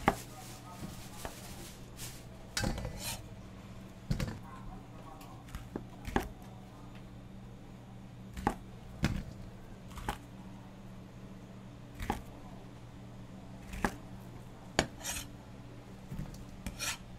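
Kitchen knife chopping through sausages and striking a wooden cutting board: separate sharp knocks every second or two, over a steady low hum.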